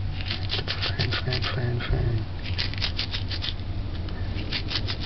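Dried rosemary being rubbed and crumbled between the fingers and palm: quick, dry scratching in short runs with brief pauses, over a steady low hum.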